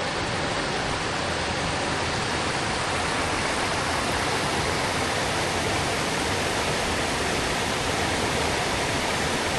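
Creek water rushing steadily through a rocky gorge, a loud, even roar of flowing water.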